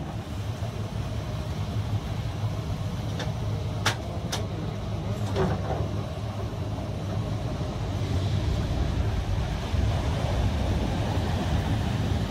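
A tracked excavator's diesel engine runs steadily over breaking surf. A few sharp cracks come about three to five seconds in, as the bucket breaks into the boat's plywood and hardwood hull.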